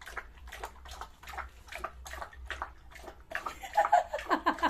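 Dog lapping water from a plastic bowl, in quick repeated laps about four a second. A louder, voice-like sound joins near the end.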